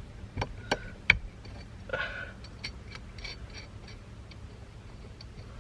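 Sharp metallic clicks and knocks as small steering-wheel hub parts and fasteners are handled: three distinct clicks in the first second, then lighter, irregular ticking that fades out.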